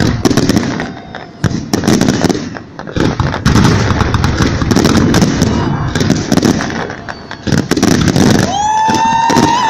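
Festive fireworks salute going off: repeated sharp bangs and crackling bursts over a murmur of crowd voices. Near the end a loud, high whistle starts, rises slightly and holds.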